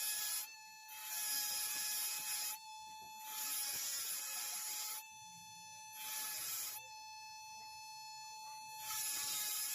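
Repeated scraping strokes on wood, each lasting a second or two with short pauses between, over a faint steady whine.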